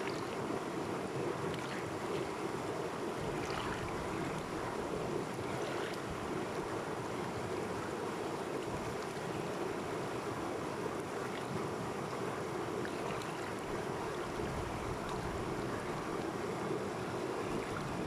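Shallow mountain river running fast over rocks in a small rapid: a steady rush of water with small splashes, heard close at the water's surface.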